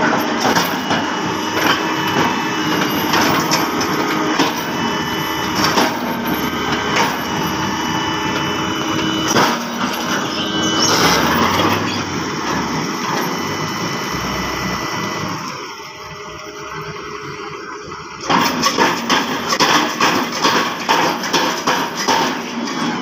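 SANY SR155C rotary piling rig running, with steady machine tones under repeated metallic knocks and clanks from the rig. It goes quieter for a couple of seconds about two-thirds of the way through, then the knocking comes back thicker.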